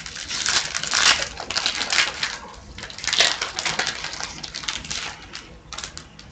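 Wrapper of a hockey card pack being torn open and crinkled by hand: a string of crackling rustles that thins out toward the end.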